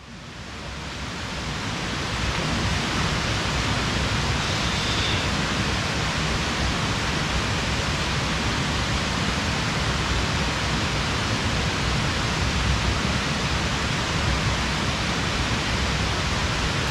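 Steady rushing noise that fades in over the first two seconds and then holds even, with no distinct events.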